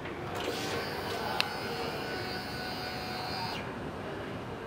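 Electric fuel pump of a fuel-injected 2005 Suzuki Boulevard C50 priming at key-on: a faint steady whine that stops after about three seconds, with a single light click about a second and a half in.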